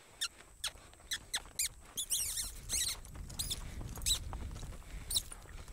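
A run of short, high squeaky chirps, two or three a second, over the low dull rumble of a horse loping on arena dirt, which is strongest in the middle.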